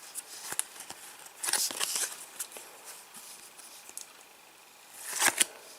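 Trading cards being handled and slid off one another: scattered small clicks, a short papery rustle about one and a half seconds in, and a louder brief swish of a card just after five seconds.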